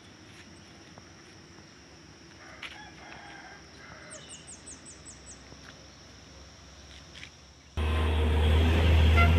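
Quiet rural outdoor sound with a steady high insect hum. A rooster crows about three seconds in, then comes a quick run of high bird chirps. Near the end a loud, low diesel truck engine noise cuts in suddenly and is the loudest sound.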